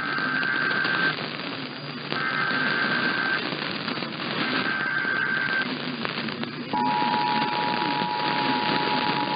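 Emergency Alert System SAME header: three bursts of warbling data tones, each about a second long with a second's gap between them. About two-thirds of the way in, the EAS two-tone attention signal starts and holds steady. All of it plays over a steady crackling hiss of AM radio static.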